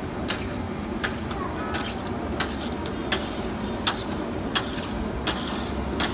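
Metal spatula clacking against a large flat griddle of frying meat in a steady rhythm, about one sharp strike every 0.7 seconds, over a continuous frying hiss and crowd chatter.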